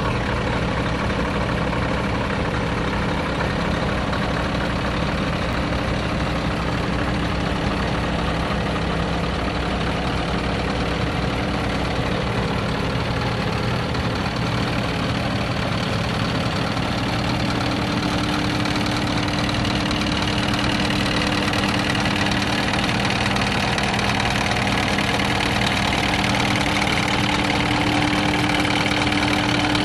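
Scania R620 truck's 16-litre V8 diesel idling steadily, growing slightly louder with a steady hum in the last third.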